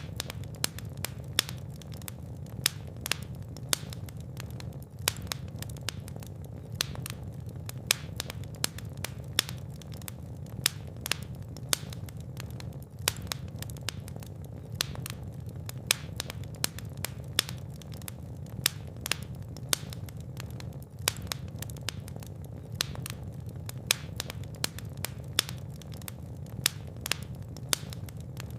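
Wood fire crackling and popping steadily, with frequent sharp irregular snaps over a low, even rumble of flame.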